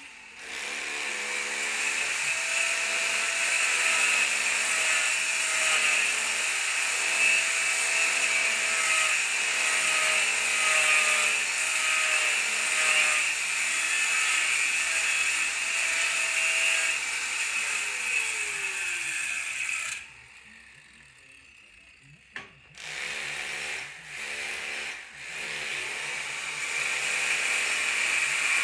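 A power tool running steadily, stopping about twenty seconds in, then starting again in a few short bursts before running on.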